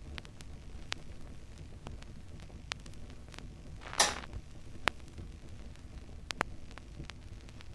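A low steady hum with scattered faint clicks and crackles. About four seconds in there is one loud, short burst of noise that dies away quickly.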